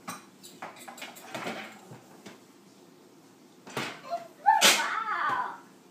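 A wooden rolling pin knocking and clattering several times against a kitchen counter and sink, then a loud, high-pitched toddler's voice about four and a half seconds in.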